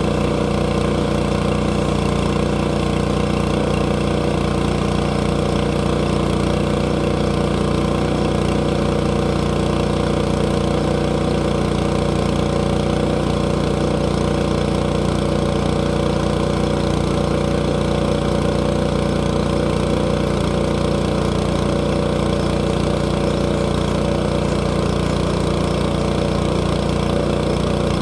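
A log-milling sawmill's engine running steadily at a constant speed, with an even, unchanging pitch.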